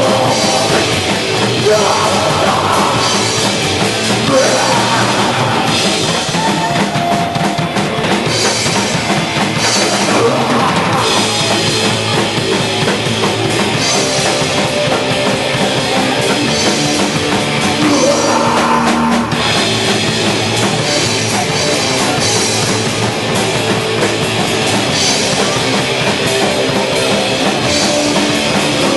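Hardcore punk band playing loud and fast, the drum kit driving a dense, unbroken wall of music.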